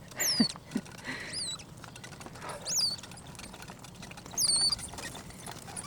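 Four short, high-pitched squeaks, each rising then falling in pitch, spaced a second or more apart: a baby capuchin monkey calling.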